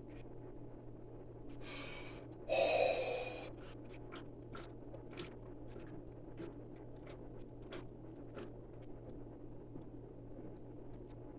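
A person chugging a soda: a loud breath about two and a half seconds in, then a run of faint swallowing gulps, about two a second, over a steady low room hum.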